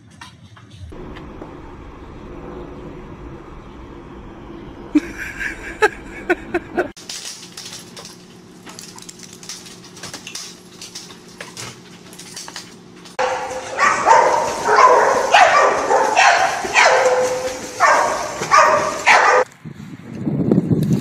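A dog barking and whining in short repeated calls. A few sharp yips come about five to seven seconds in. A loud run of barks comes in the second half and stops about a second and a half before the end.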